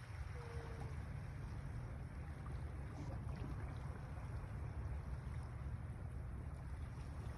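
Wind buffeting the microphone: a steady, fluttering low rumble that comes up suddenly at the start.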